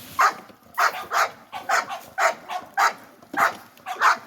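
Dog yapping: a quick run of about eight short, sharp barks, roughly two a second.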